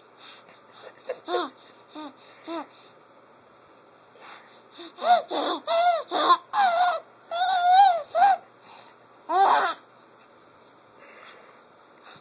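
A baby laughing in short, wheezy bursts of high-pitched squeals. A few small giggles come first, then a loud run of laughs in the middle and one more shortly after.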